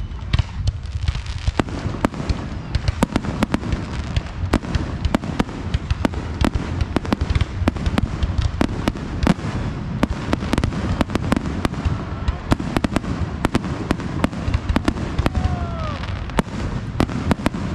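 Fireworks display: aerial shells bursting in a rapid, irregular barrage of sharp bangs and crackles over a continuous low rumble.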